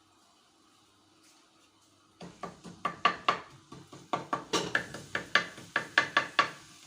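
A cooking utensil knocking and scraping against a frying pan as garlic is stirred in olive oil, a quick run of sharp knocks at about four a second starting about two seconds in.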